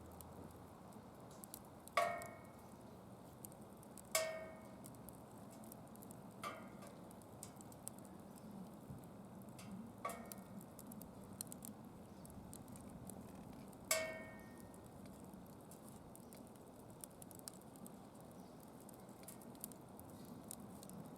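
Wood fire burning in a steel DOD Mecha-Moe Fire secondary-combustion fire pit: a faint steady crackle with scattered small ticks and five louder sharp pops, each with a brief ringing tail.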